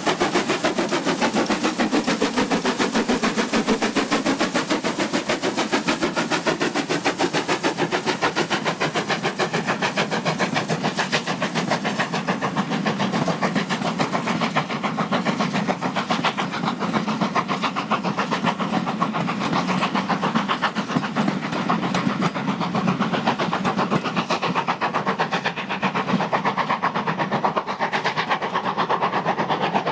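Two 0-6-0 pannier tank steam locomotives double-heading a passenger train, passing and pulling away with a rapid, steady beat of exhaust chuffs over the run of the train on the rails.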